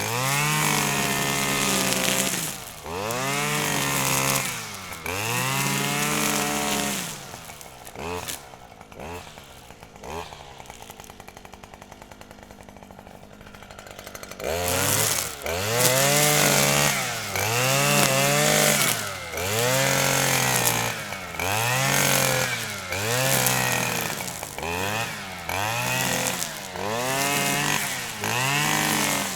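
Grass trimmer's engine revving up and dropping back over and over as it cuts grass. About eight seconds in it settles to a quieter low idle for several seconds, then the repeated revving resumes.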